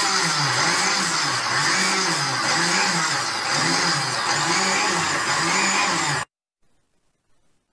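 Electric mixer grinder with a steel jar running at full speed, grinding leftover cashew crumbs into powder. Its low drone wavers up and down in a regular rhythm, and it stops abruptly about six seconds in.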